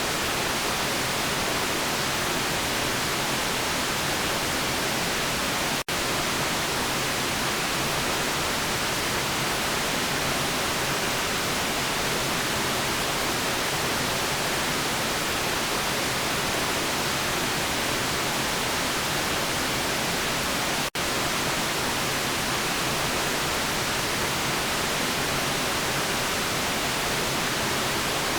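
Steady white-noise hiss, even and unchanging, with its energy spread high into the treble. It drops out for an instant twice, about 6 and 21 seconds in.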